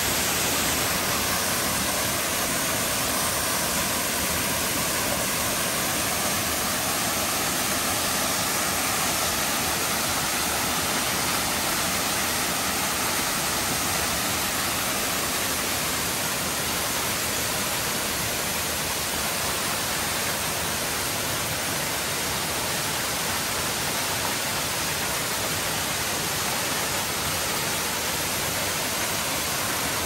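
Waterfall in full flow, running high with water, its fall onto the rocks giving a steady, unbroken rush.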